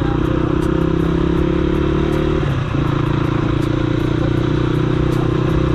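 Motorcycle engine running steadily while riding, with a short drop in the engine note about two and a half seconds in before it picks up again.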